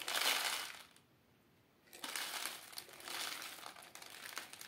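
Puffed grains shaken from a small jar into a clear plastic tray on a kitchen scale, a dry rattling patter of grains landing on plastic. It stops for about a second near the start, then resumes.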